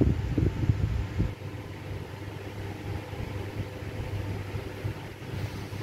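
Steady low hum of room noise, with a few low thumps in the first second or so.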